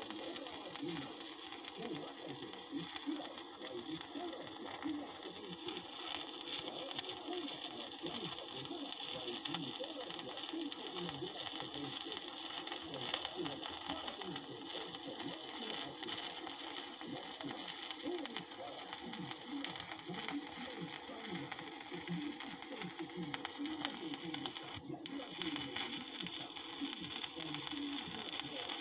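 Electric arc welding: the welding arc crackling and sizzling steadily, with one brief break in the arc late on.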